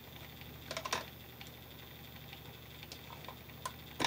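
Hand wire strippers clicking as they bite and pull the insulation off a 14-gauge copper wire: a short cluster of clicks about a second in, a few faint ticks, then one sharp click at the end.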